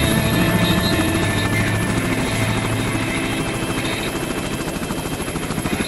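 Helicopter running, its rotor blades beating in a rapid, steady rhythm; it grows slightly quieter toward the end.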